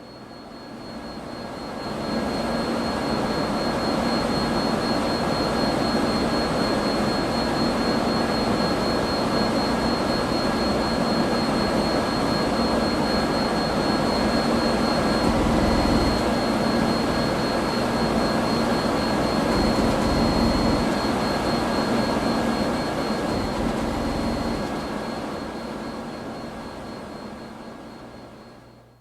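Vintage computer hum: a steady rushing hum under a thin, high ringing tone that holds throughout. It fades in over the first couple of seconds and fades out over the last few.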